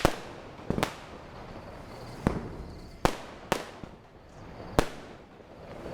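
Firecrackers going off: about six sharp bangs at irregular intervals, each followed by a short echo.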